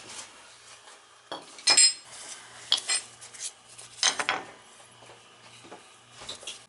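Small metal objects clinking and rattling as they are handled, in several separate bursts with a short metallic ring, the loudest about a second and a half in and again about four seconds in.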